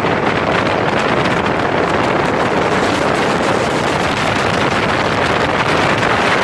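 Speedboat under way at speed: a loud, steady rush of wind buffeting the microphone, mixed with engine and water noise.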